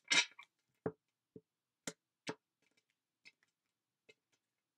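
A deck of tarot cards being handled and set down on a tabletop: a brief shuffling rustle at the start, then a string of separate sharp clicks and taps, roughly one every half second, growing fainter toward the end.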